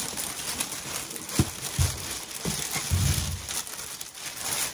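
Tissue paper rustling and crinkling as it is pulled back by hand, with a few dull bumps in the middle.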